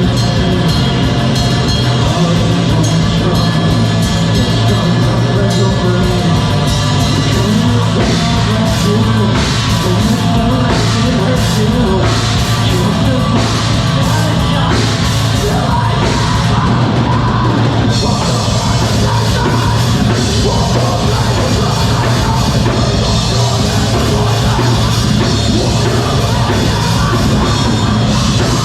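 A live rock band playing loud, heavy music: a drum kit with repeated sharp hits, and dense distorted instruments, with some singing.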